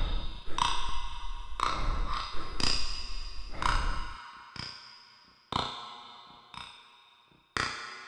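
Ringing, bell-like pings struck about once a second, each dying away, over a low rumble that cuts off about four seconds in; after that the pings carry on alone.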